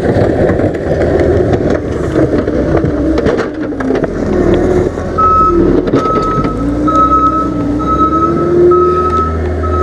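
John Deere 324G skid steer's diesel engine running under load while pushing snow, with sharp clicks and clatter in the first half. About five seconds in, its reversing alarm starts beeping steadily, a little over one beep a second, over a slowly rising whine.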